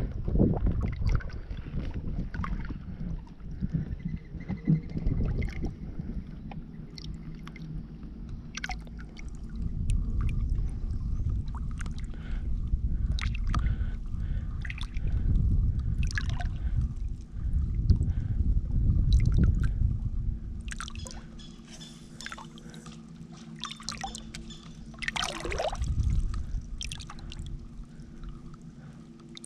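Water sloshing and trickling as a weak largemouth bass is swept back and forth at the side of a boat to push water over its gills, under a low, uneven rumble.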